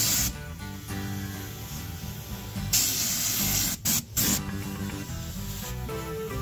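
Air-fed underbody coating gun spraying bitumen underseal in short hissing bursts: a brief one at the start, a longer one of about a second near the middle, and a short one right after it. Background music plays underneath.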